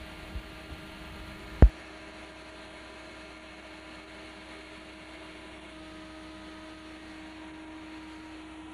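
Steady hum with a constant low tone and a fainter higher one, interrupted once by a single sharp knock about a second and a half in.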